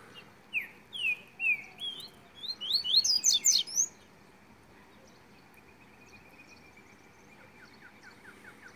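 A songbird sings one loud phrase of clear, slurred whistles lasting about three seconds, the notes climbing higher toward the end. Near the end, faint rapid ticking notes follow.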